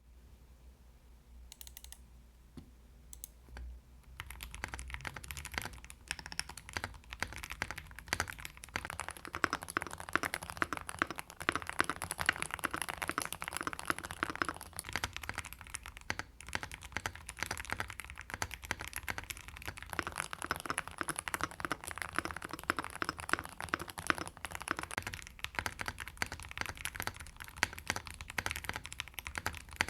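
Typing on an Akko Mod007B-HE Hall-effect keyboard with Akko Cream Yellow magnetic linear switches, a taped PC plate and PBT double-shot Cherry-profile keycaps. A few separate key presses come first, then steady, fast typing starts about four seconds in.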